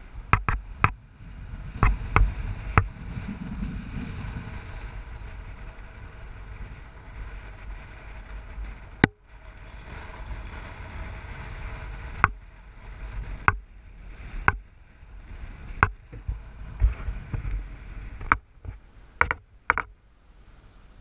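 A car driving slowly on a rough road: a steady low road rumble with frequent sharp knocks and clicks, bunched near the start and again in the second half.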